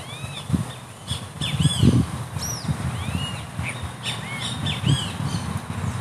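Red-legged seriema calling: a run of harsh, arched yelping notes, repeated and overlapping, with a low rumble underneath.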